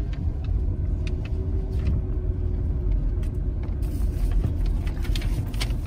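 Car interior noise while driving slowly on a wet street: a steady low rumble from the engine and tyres, with scattered faint ticks.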